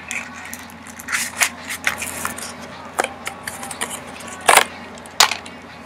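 Close-up handling noises: scratchy rustles and a string of sharp clicks and knocks, the loudest two about four and a half and five seconds in.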